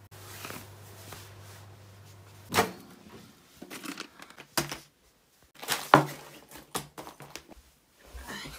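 A low steady hum, then a string of sharp clicks and knocks from a microwave oven being used: its door handled and a plastic-wrapped food pack put inside. The loudest knock comes about six seconds in.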